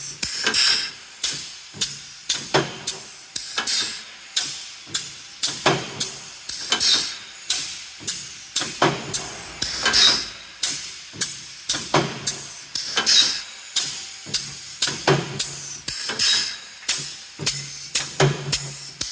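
Automatic wire mesh welding machine cycling, giving a quick, regular rhythm of sharp metallic clanks with a little hiss between strokes.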